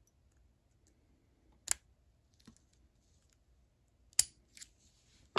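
Sharp metal clicks and ticks as the small parts of a vintage KAL 1/2-inch drive ratchet are handled during reassembly, with a spring-loaded plunger being squeezed down. There is a loud click a little under two seconds in and another about four seconds in, with fainter ticks between them and one more near the end.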